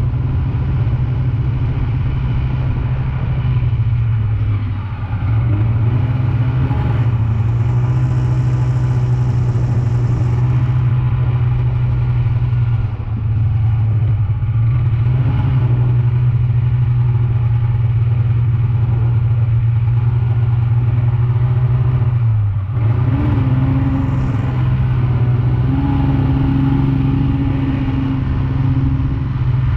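Snowmobile engine running at a steady cruising throttle, its pitch dropping and recovering briefly three times as the throttle is eased off and opened again.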